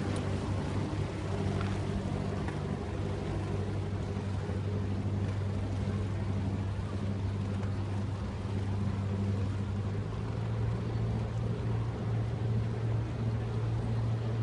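Small motor launch's engine running at low speed, a steady low drone whose pitch rises slightly about ten seconds in.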